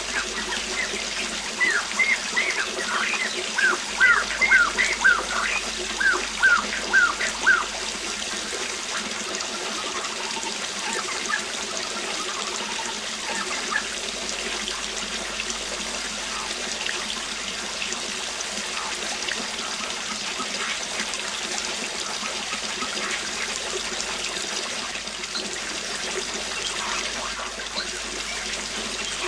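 Waterfall running steadily, with birds singing over it. About two seconds in comes a quick run of repeated, downward-sliding chirps lasting several seconds, followed by fainter scattered calls.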